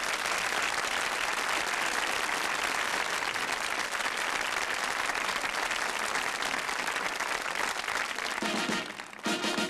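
Studio audience applauding, a dense steady clapping. Near the end the band starts up with held chords and a rhythm.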